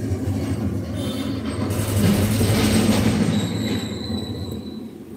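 Loud rumbling noise of a passing vehicle, swelling about two seconds in and fading away, with thin high squealing tones in the second half.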